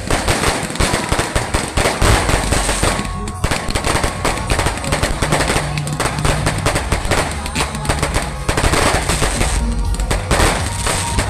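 Fireworks going off in rapid, dense volleys of sharp bangs and crackles, with barely a gap between reports.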